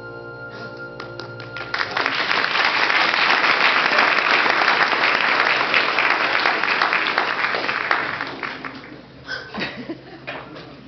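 A musical accompaniment ends, and an audience breaks into applause: a few claps, then full clapping from about two seconds in that dies away near the end.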